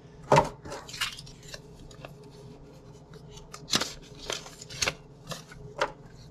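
Cardboard packaging and paper inserts being handled and set down on a countertop: a string of short, sharp taps, scrapes and rustles.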